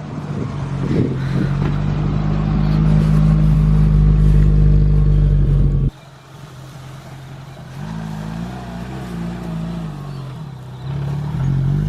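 Suzuki Sierra 4x4's engine running steadily under load with a heavy low rumble while driving off-road. About halfway through the sound cuts off abruptly to a quieter engine note that wavers in pitch, then revs up again near the end.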